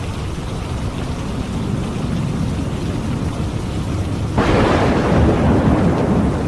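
Steady heavy rain over a low rumble. About four seconds in, a sudden thunderclap cracks out, the loudest thing here, and fades over the next couple of seconds.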